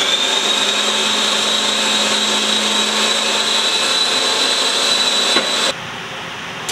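Electric blender motor running at full speed with a steady high whine, chopping food, then switched off about five and a half seconds in.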